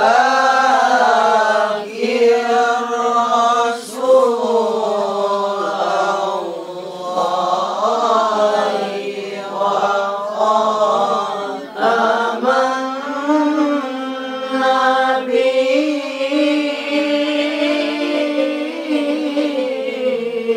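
A single voice chanting Quran recitation in a slow melodic style, holding long notes that bend up and down, with brief pauses for breath between phrases.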